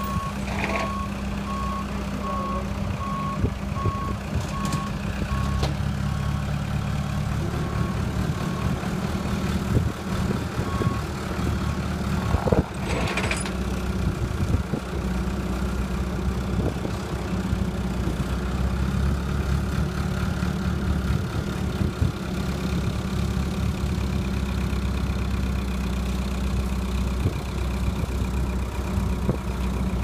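Ingersoll-Rand RT-708G rough-terrain forklift's engine running steadily as it drives with a skid steer on its forks, a backup alarm beeping evenly for the first eleven seconds or so. A single clank about thirteen seconds in.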